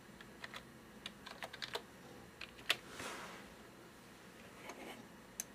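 Computer keyboard being typed on: faint, irregular key clicks as a word is typed.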